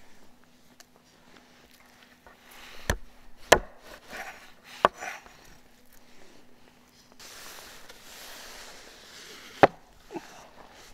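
Meat cleaver chopping raw chicken on a wooden cutting board: a few sharp knocks, the loudest about three and a half seconds in. A few seconds of rustling follow, then one more heavy knock near the end.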